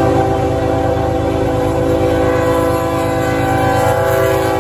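Freight diesel locomotive's multi-note air horn blowing one long, loud blast as the locomotive passes close by at a grade crossing, over the low rumble of the train. The horn chord drops slightly in pitch about three and a half seconds in as the locomotive goes by.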